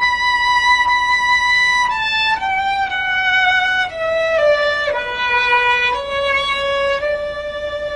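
Solo violin playing a slow melody with vibrato: a long held note, then a phrase stepping downward note by note, settling on a long lower note about six seconds in.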